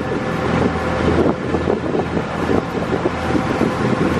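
Passenger boat's engine running steadily, with wind buffeting the microphone.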